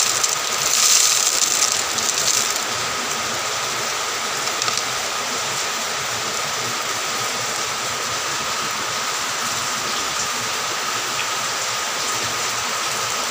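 SP36 phosphate fertilizer granules pouring from a plastic bag into a plastic bottle, a gritty hiss in the first two or so seconds. It sits over a steady background hiss with a faint high hum.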